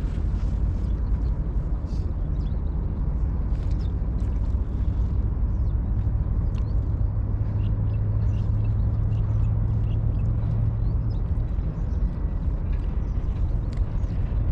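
Outdoor ambience: a steady low rumble with a low hum that grows louder about halfway through, and faint short high chirps scattered throughout.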